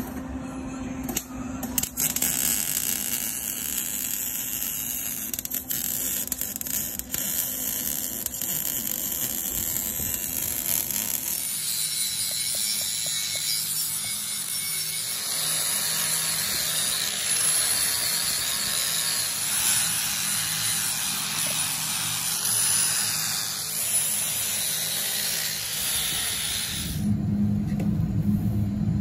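MIG welding on a steel exhaust muffler, a crackling buzz with scattered clicks, for the first ten seconds or so. Then a cut-off wheel in a small grinder whines steadily as it cuts the steel exhaust pipe. Near the end the Honda CRX engine starts up and idles with a low, steady rumble through the new Trust catback exhaust.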